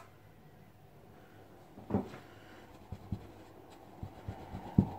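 Makeup brush and cosmetic containers being handled: a few soft knocks and taps, the loudest near the end, over faint rubbing.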